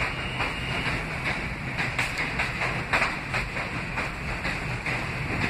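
An R160A subway train running past the platform, a steady rumble of wheels on rail with irregular sharp clacks as the wheels cross rail joints.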